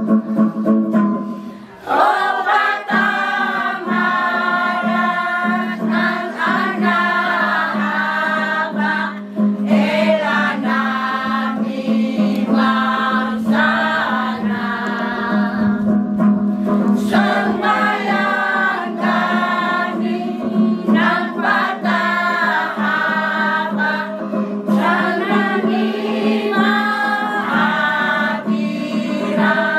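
Elderly mixed choir singing a hymn in the Klamu language, in unison, over a steady low note held underneath. The singing drops away briefly about two seconds in, between phrases, then carries on.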